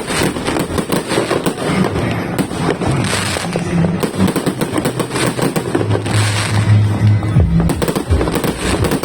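Rapid-fire barrage from a 5,000-shot fireworks cake: dense popping reports, many a second without a break, over music with low sustained tones.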